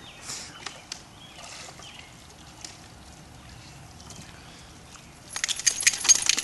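Water sloshing and dripping as a wet dog climbs out of an above-ground pool onto a wooden deck, then a louder burst of rapid clicks and spatter lasting about a second near the end.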